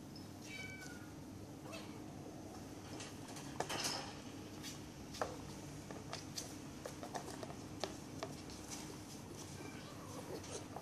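Bengal kittens play-fighting: scattered light taps, clicks and scuffles of paws and claws on the mat and wire cage, with a louder scrabble about four seconds in. A brief high chirp, stepping down in pitch, comes about half a second in, over a steady low hum.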